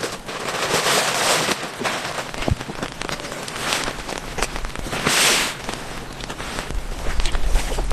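Heavy rain pattering, with irregular sharp crackling hits and several surges of hiss; a low rumble comes in near the end.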